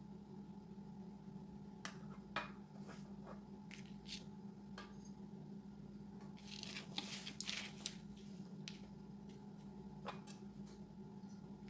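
Faint clicks, taps and short scraping or rustling sounds of hands working at something, busiest about six to eight seconds in, over a steady low hum.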